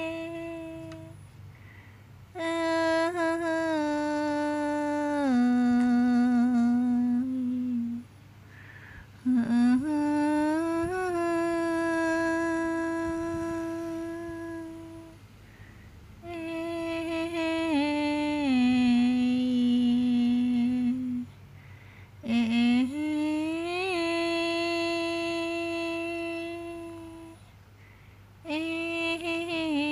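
A person humming a slow lullaby. The phrases last about five seconds each, with long held notes that step down in pitch and short pauses between them.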